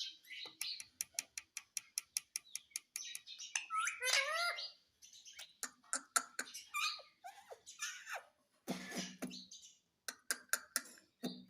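Indian ringneck parrot making rapid clicking sounds, several a second, mixed with short gliding chirps and squeaks, with a lower-pitched call about nine seconds in.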